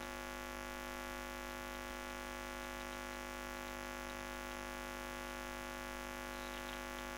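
Steady electrical hum made of many even tones, mains hum picked up by the recording chain, unchanging throughout.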